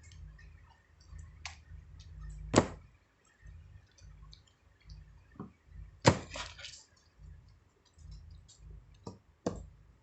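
Handling noises: scattered light clicks and taps, with two loud sharp knocks, one a few seconds in and one about midway, and a couple of smaller knocks near the end.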